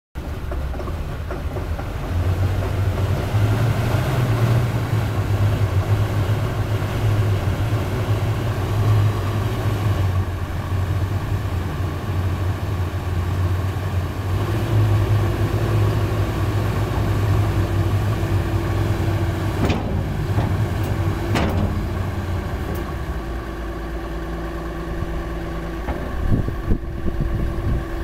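Caterpillar 320E excavator's diesel engine running steadily, with a higher steady whine joining about halfway through. A little after twenty seconds in the engine drops to a lower note, with a few sharp knocks around it.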